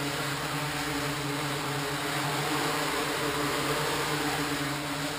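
MikroKopter quadcopter motors and propellers hovering, a steady buzz made of several tones. The craft is flying on untuned default settings and is unstable, oscillating and yawing while its controller tries to compensate.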